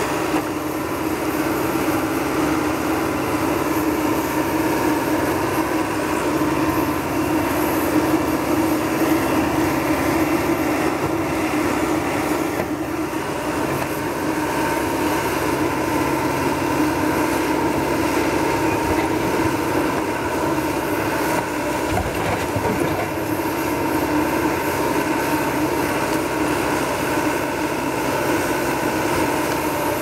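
Caterpillar 420E backhoe loader's diesel engine running steadily under load while the backhoe arm digs.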